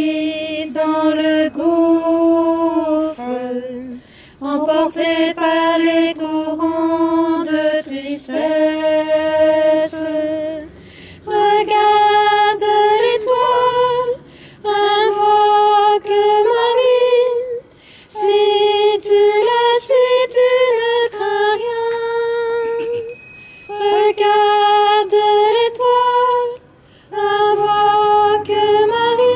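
A woman singing a slow hymn melody without accompaniment, in held phrases of a few seconds broken by short pauses for breath.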